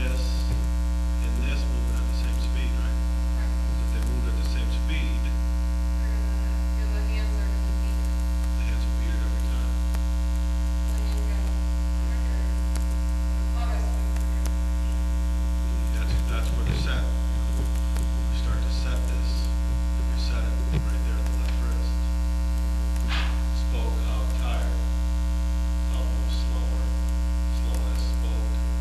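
Loud steady electrical mains hum with a stack of overtones, and faint scattered clicks and rustles beneath it.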